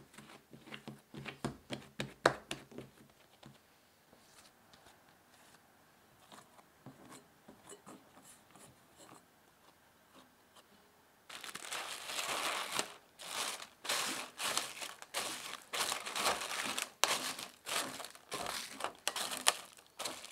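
Hands kneading and slapping bread dough on a silicone baking mat, a quick run of soft slaps that stops after a few seconds. About eleven seconds in, plastic cling wrap crinkles and rustles loudly as it is pulled and stretched over a glass bowl.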